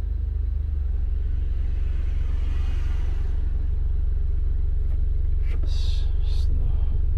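2018 Ford Explorer's 2.3-litre turbo four-cylinder idling in Drive, a steady low rumble heard from inside the cabin. The idle shake persists despite new spark plugs, engine and transmission mounts, and fresh transmission fluid.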